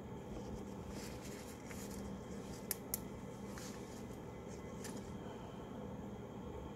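Small plastic model-kit parts being handled and fitted together over a paper towel: light rustles and two sharp clicks close together a little under three seconds in, over a steady low hum.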